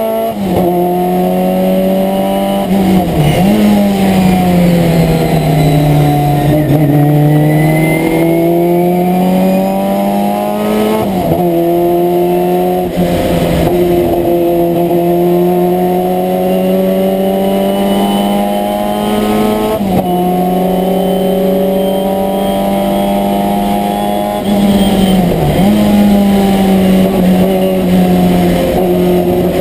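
Abarth 1000 TC's rear-mounted four-cylinder engine at racing speed, heard from inside the cabin. Its pitch sinks and climbs through the corners, holds steady on the straights, and dips sharply a few times at gear changes.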